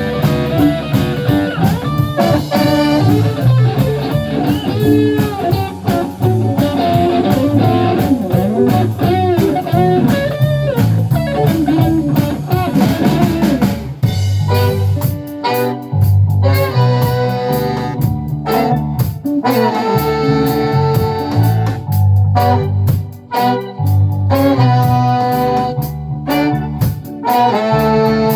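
A live band plays with electric guitar, bass and drums. In the first half the guitar solos with bent, gliding notes; from about halfway the band switches to stop-start chord hits with strong bass between short breaks.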